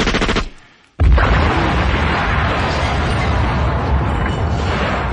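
Sound-effect machine-gun burst ending and dying away, then about a second in a loud bomb explosion that keeps rumbling.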